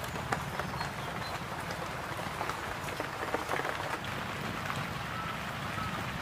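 Outdoor ambience: a steady low rumble with scattered soft ticks and crackles at irregular intervals, and a faint short chirp about five seconds in.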